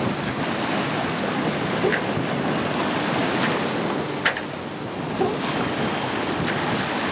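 Wind buffeting the microphone over the steady rush of water along the hull of a sailboat under sail. A few short ticks sit on top, the sharpest about four seconds in.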